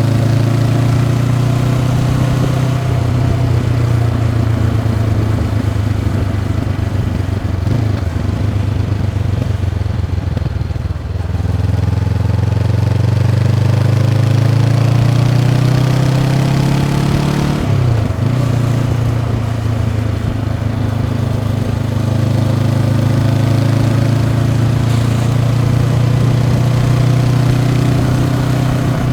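Honda CB500X's 471 cc parallel-twin engine running through its stock exhaust while riding. The engine note falls and briefly dips near the middle, then climbs again, with a short break a little later before settling into a steady pull.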